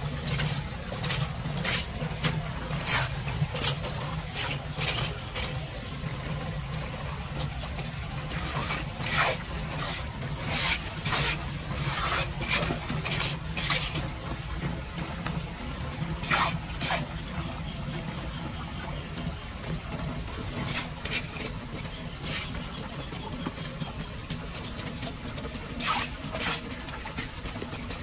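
Small hand rake scraping and clicking against a metal drain grate and wet concrete as leaves and debris are pulled off, in irregular strokes, over water running into the drain and a steady low hum.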